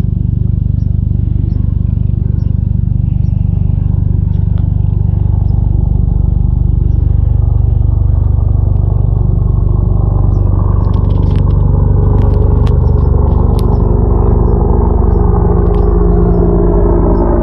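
Boeing helicopter passing low overhead: the steady rapid beat of its rotor blades with a whining engine tone, growing louder and rising in pitch over the second half.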